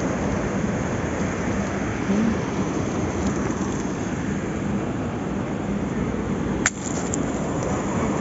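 Steady roar of wind on the microphone mixed with surf on a pebble beach, with one sharp click about six and a half seconds in.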